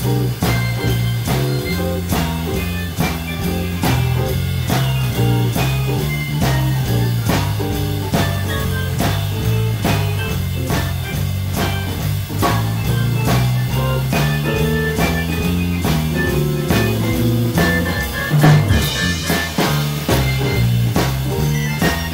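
Live instrumental blues played by a quartet: an archtop electric guitar and a keyboard over a bass line and a drum kit keeping a steady beat.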